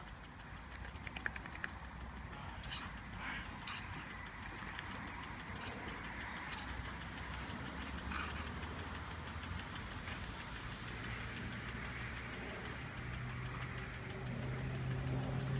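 Impact sprinkler on a tripod ticking rapidly and evenly as its arm strikes the water jet, over the hiss of the spray. In the last few seconds a motor's low hum comes in, rising in pitch and growing louder.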